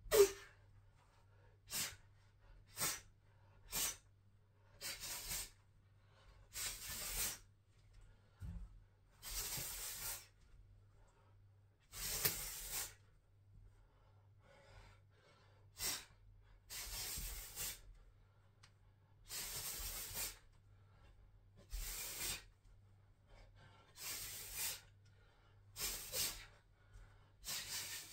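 Forceful hissing exhalations through the mouth, some short and sharp, some drawn out for about a second, coming every one to two seconds as a martial artist throws hand strikes. A faint steady low hum runs underneath.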